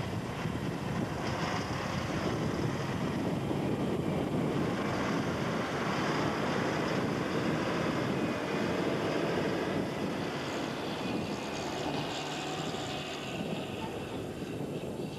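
Heavy MAN 8x8 off-road truck's diesel engine running steadily as the truck drives over a loose dirt track, easing off slightly near the end.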